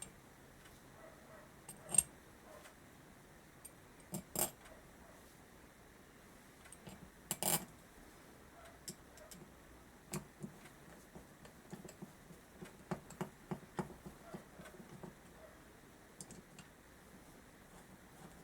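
Small metal carburettor parts being handled on a workbench: scattered clicks and clinks, one sharp click about two seconds in, short clatters a little later, and a run of light ticks past the middle.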